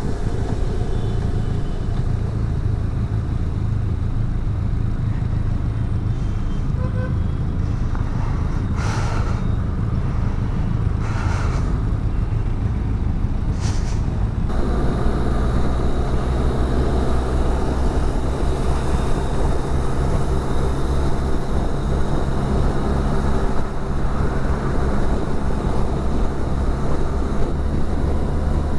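Benelli TRK 502's parallel-twin engine running under way, with wind and road noise on the microphone. Three brief whooshes of noise come through before the middle, and then the engine and wind grow louder and fuller as the bike speeds up to highway pace.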